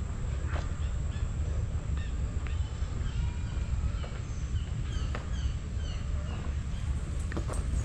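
Birds calling in a quick series of short, high, downward-sliding notes, over a steady low rumble from the walking camera's microphone, with a few sharp clicks near the end.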